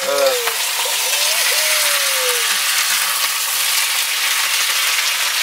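Sliced potatoes frying in plenty of hot oil in a pan, a loud, steady sizzle with crackling as they are turned with a spatula. A thin tone wavers and falls between about one and two and a half seconds in.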